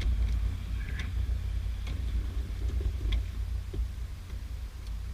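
A few light plastic clicks and handling noise as a car's interior center-console trim and switch-panel clips are worked loose, over a steady low rumble.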